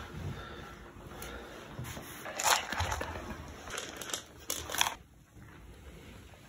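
Crinkling rustle of a plastic cat-treat packet being handled, in short bursts, loudest about two and a half seconds in and again near five seconds.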